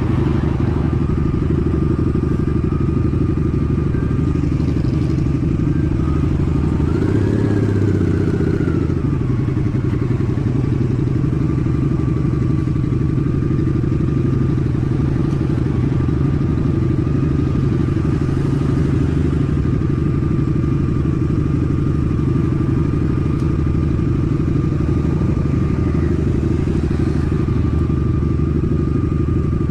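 Honda Shadow 750 ACE's V-twin idling steadily while the bike stands at a stop, with a brief swell that rises and falls about seven seconds in.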